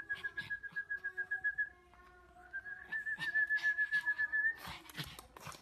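A warbling whistle held on one steady high note for about two seconds, then again a little higher for about two seconds after a short break. A few short rustles or knocks follow near the end.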